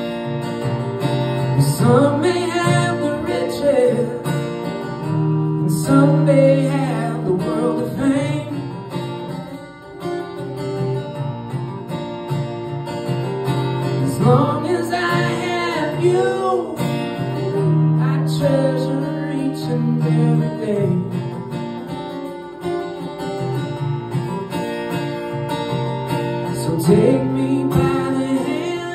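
Live solo acoustic guitar strummed steadily, with a man singing over it in phrases of a few seconds with short gaps between.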